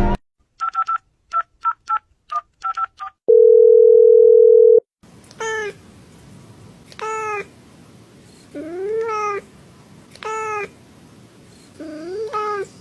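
Touch-tone phone keypad dialing, about nine short beeps, then a single loud steady tone lasting about a second and a half. After that a cat meows five times, about a second and a half apart.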